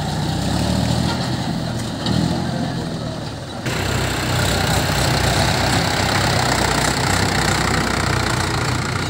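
Diesel tractor engines running steadily. First a John Deere tractor pulls a rear blade through mud; then, after an abrupt change about four seconds in, a Mahindra 575 DI's four-cylinder diesel runs louder.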